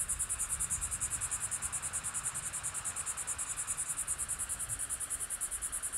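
Insects chirring in a steady, high-pitched pulsing, about ten pulses a second, over a faint low rumble.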